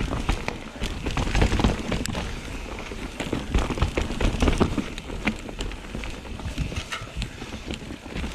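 A mountain bike being hauled through fallen trees: a dense run of crackling and snapping twigs and branches, footsteps in forest debris, and knocks from the bike, over a low rumble of handling noise.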